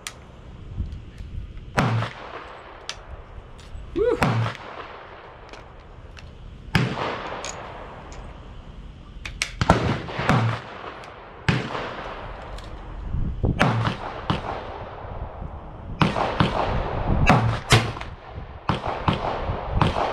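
Gunshots at a rifle range: a dozen or more sharp cracks at irregular intervals, sometimes a second or less apart and closer together in the second half, each trailing off in a short echo.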